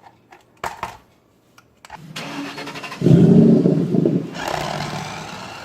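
Small electric drive motor and gears of a 1:24 scale RC toy car whirring as it is driven. The whir starts about two seconds in, is loudest for about a second, then settles to a steadier, higher whir. A click is heard near the start.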